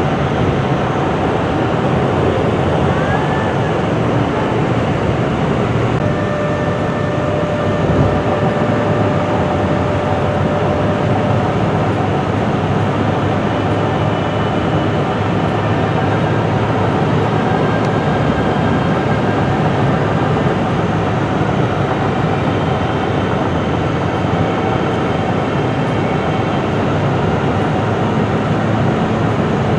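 Steady road noise inside a moving car's cabin: tyres and engine running at highway speed on a snowy road.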